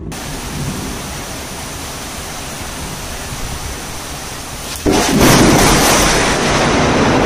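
Thunderstorm with steady heavy rain noise. About five seconds in it jumps suddenly much louder and stays loud.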